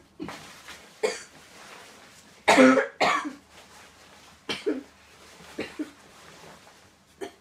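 A person coughing several times in short separate bursts, the loudest about two and a half seconds in, over a faint rustle of clothing being handled.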